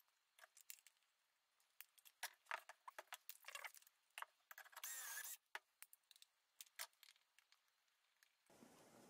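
Near silence with faint scattered clicks and taps as a metal-and-plastic dowelling jig and a quick clamp are handled and set on a board, with a brief faint rasp about five seconds in.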